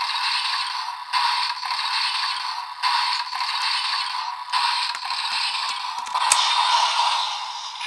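DX Primitive Dragon Wonder Ride Book toy playing its looping standby sound through its small speaker: a thin electronic loop with no bass, repeating about every second and a half. Near the end come plastic handling knocks and one sharp click as the Elemental Dragon Wonder Ride Book is fitted onto it.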